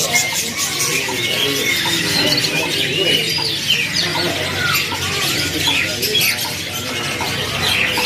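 Young domestic canaries twittering and chirping in a crowded cage, many short rising and falling calls overlapping, with indistinct voices in the background.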